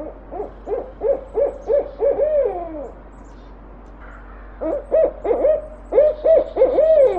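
An owl hooting in two bouts: each a quick series of short hoots ending in a longer, falling hoot, the second bout starting about four and a half seconds in.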